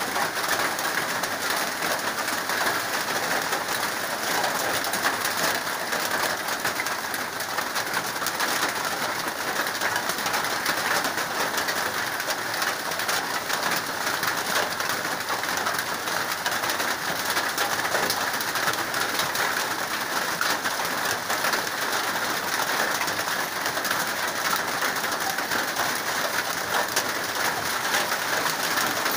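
Steady rain falling on the corrugated metal roof overhead and the wet ground around it.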